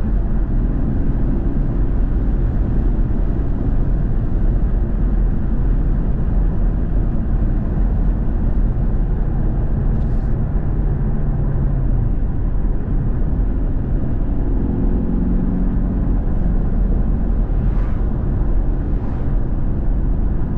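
Car engine running steadily: a continuous low drone whose note shifts a little in pitch now and then.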